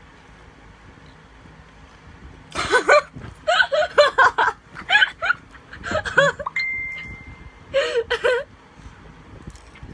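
A young woman laughing in several high-pitched bursts, starting about two and a half seconds in and stopping about a second and a half before the end.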